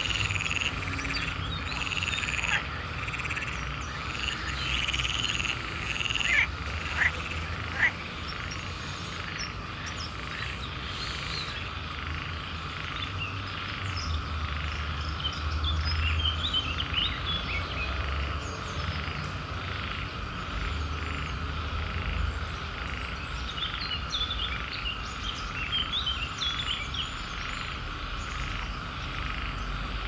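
A chorus of swamp frogs calling at night after rain: many overlapping croaks and chirping calls over a steady trill, with a few louder sharp calls about six to eight seconds in.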